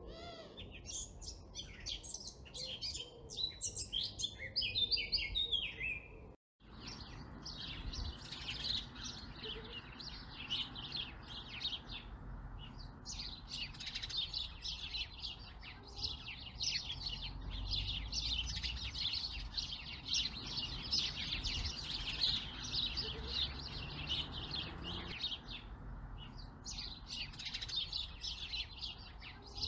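Birds singing and chirping: separate call phrases at first, then a dense continuous chorus of chirps. The sound cuts out for a moment about six seconds in.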